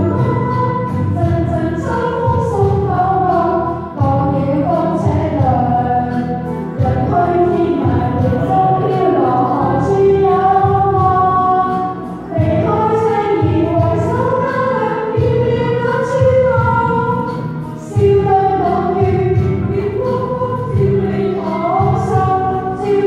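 A woman singing a Cantonese pop ballad into a microphone over a recorded backing track with a steady beat, with short breaks between phrases.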